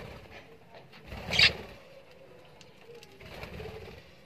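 Budgerigars fluttering their wings around a clay seed dish, with one brief, loud, sharp burst of sound about a second and a half in and softer fluttering near the end.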